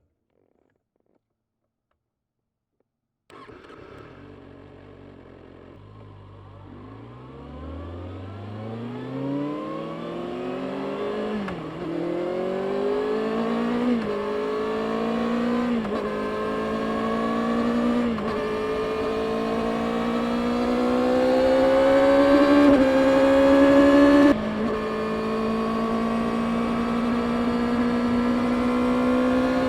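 Stock 2024 Kawasaki Ninja ZX-6R's 636 cc inline-four pulling away and accelerating through the gears, starting a few seconds in. The engine note climbs in each gear and drops briefly at each of about five upshifts, getting steadily louder.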